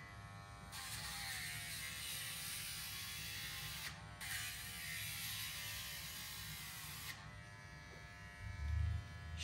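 Battery rotary nail grinder (Dremel) buzzing as it grinds a dog's toenails, in two stretches of about three seconds with a brief break between them. A low rumble comes in near the end.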